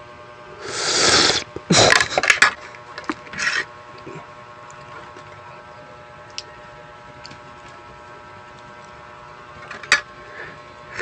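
Close-miked eating noises into a furry windscreen microphone: a loud noisy burst about a second in, then a quick run of clicks and short bursts, and one sharp click near the end, over a faint steady hum.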